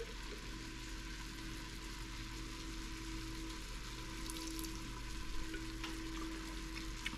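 Ground beef with bacon bits frying in a pot on an electric stovetop, a soft steady sizzle, while hot bacon grease is poured in from a grease keeper.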